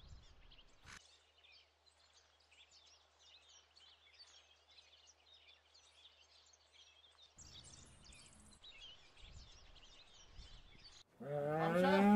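Small birds chirping steadily in the background. Near the end, a loud, drawn-out call rising in pitch suddenly comes in over them.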